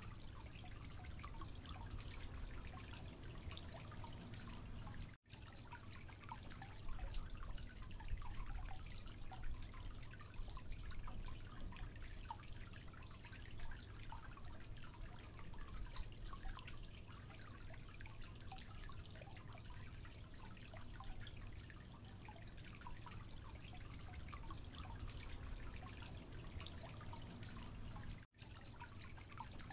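Spatula stirring flour into thin cake batter in a bowl: small wet, sloppy clicks and scrapes, irregular throughout. The sound cuts out for an instant twice.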